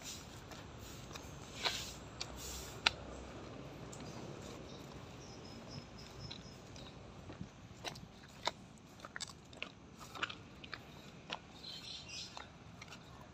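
Footsteps crunching irregularly on the gravel ballast and dry leaves of an overgrown disused railway track, with a low outdoor hiss between the steps.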